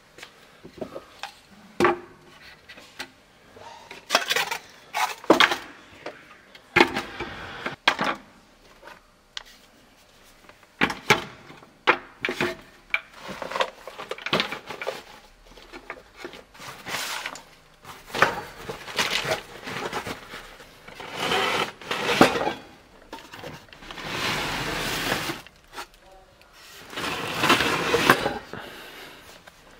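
Irregular knocks and clattering of hard objects being handled, with several stretches of scraping or rustling noise, the longest two near the end.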